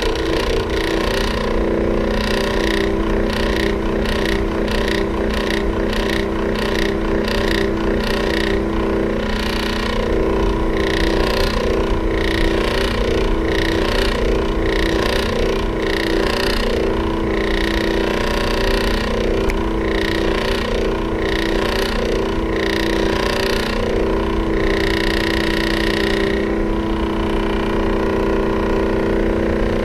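Electric fan running, its motor giving a steady hum. A sharper noise repeats roughly once a second on top of the hum and stops a few seconds before the end.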